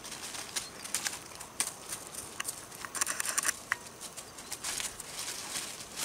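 Tibetan Mastiff puppies' paws scuffling and running through dry fallen leaves: irregular crunching rustles, busiest about three seconds in.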